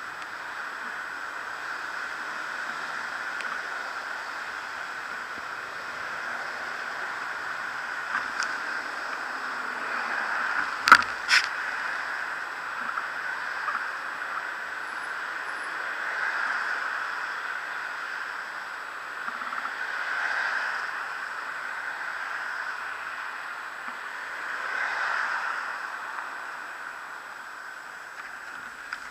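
Muffled street traffic ambience from a stopped bicycle at a road junction, rising and falling a few times as vehicles pass, with two sharp clicks about eleven seconds in.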